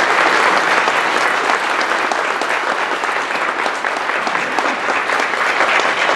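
Audience applauding: many hands clapping together, the applause slowly easing off.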